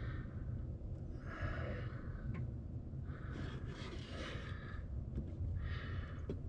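A person breathing close to the microphone, about four slow breaths, over a steady low hum, with a few light clicks.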